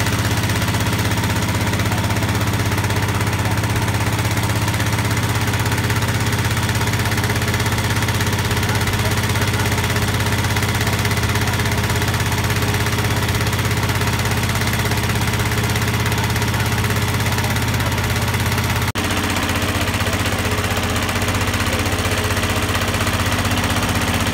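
Small air-cooled single-cylinder petrol engine on a wooden long-tail river boat, running steadily under way as it drives the propeller shaft. The note shifts slightly about three-quarters of the way through.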